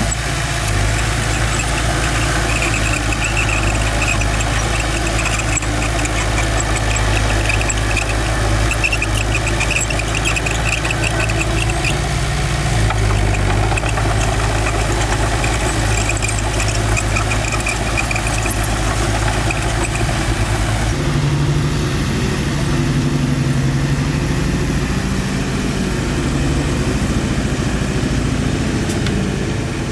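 Bulldozer's diesel engine running steadily, with a pulsing high squeak through much of the first half. About two-thirds of the way in, the engine note changes abruptly to a different, deeper pattern.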